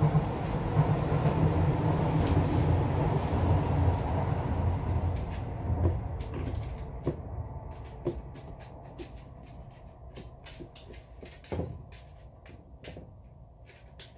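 A dog's claws click and tap on a tiled floor as it steps about, and its rope leash drags alongside, with one louder knock near the end. A low rumble fades away over the first half.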